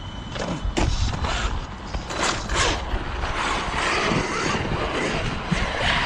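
A few clicks and knocks as the Losi Super Baja Rey RC truck is handled and set down on snow. From about three seconds in comes a steady noise of its electric drive and tyres as it drives off across the snow.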